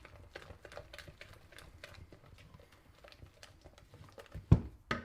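Utensil clicking and tapping against a mixing bowl while stirring melted butter into waffle batter, about three light clicks a second. A heavy thud comes near the end, the loudest sound, with a second knock just after it.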